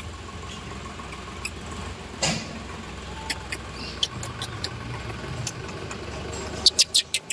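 Steady low rumble of an idling vehicle engine, with scattered sharp clicks and a quick run of louder clicks near the end.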